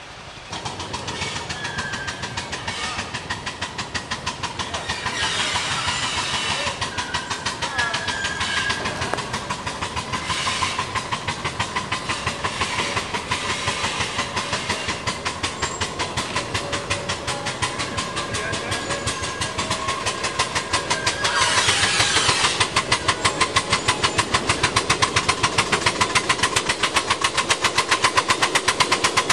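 Shay geared steam locomotive working toward the listener, its exhaust beating in rapid, even chuffs that grow louder as it nears.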